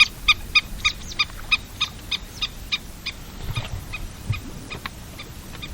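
Black-tailed godwit calling: a quick run of short, repeated notes, about three a second, that grows fainter after about three seconds into a few scattered calls.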